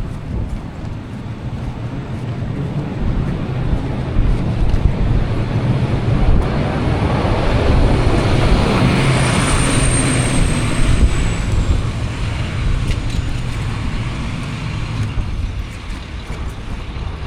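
A motor vehicle passing on a snowy street, its noise building to a peak about nine to ten seconds in and then fading, with a thin high squeal that slides down in pitch as it passes. A low rumble runs underneath throughout.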